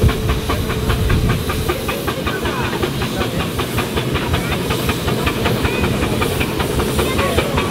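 Steam roller running under steam: a steady hiss of steam with a rapid, even clicking beat, several a second, and a low rumble that is heaviest in the first second or so.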